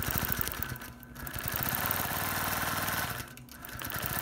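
Computer-guided Gammill longarm quilting machine stitching at speed: a fast, even run of needle strokes over a steady motor hum. It eases off briefly twice, about a second in and near the end.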